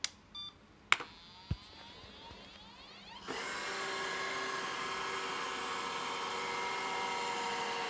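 Hoover robot vacuum switched on: a few clicks, then about three seconds in its motor starts up and runs with a steady whine.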